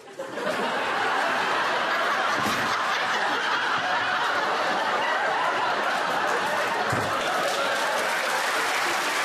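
Studio audience laughing loudly and steadily at a fluffed take. The laughter swells up in the first half second and keeps going without a break.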